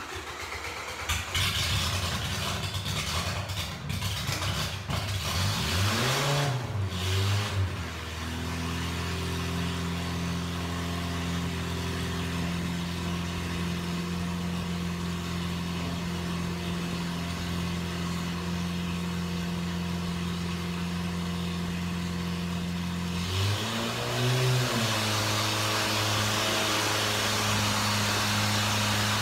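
Naturally aspirated 2.2-liter Dodge four-cylinder engine on an engine dyno, running hard at high revs and then winding down to a steady idle about six seconds in. Near the end it blips up briefly and settles at a slightly faster steady speed.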